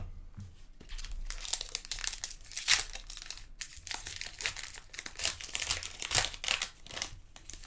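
Crinkling and rustling of a foil trading-card pack wrapper being torn open and handled, in a dense run of irregular crackles.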